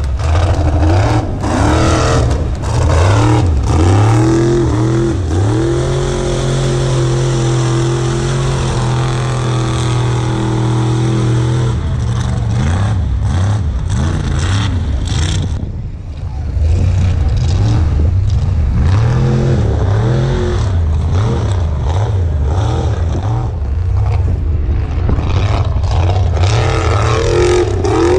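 Mud truck's engine revving hard as it runs through a mud pit: the pitch rises and falls repeatedly, holds a high steady rev for several seconds, drops in a brief lull about sixteen seconds in, then surges up and down again.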